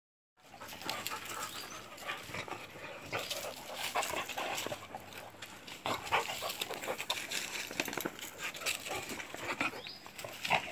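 A beagle and a black dog play-wrestling at close quarters: irregular scuffling and panting with short dog whimpers and mouthing noises.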